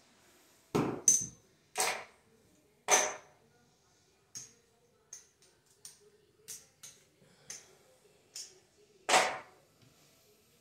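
Casino chips clacking as bets are paid and set on a craps layout: a few loud clacks in the first three seconds, then a run of lighter chip ticks, and one more loud clack about nine seconds in.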